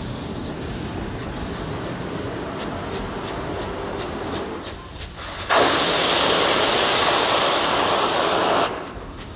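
Narrow gauge passenger coaches rolling with faint clicks from the rail joints; about five and a half seconds in, a loud steam hiss starts suddenly, runs steadily for about three seconds and cuts off. This is steam locomotive No. 476, a K-28 2-8-2, venting a jet of steam sideways in a boiler blowdown.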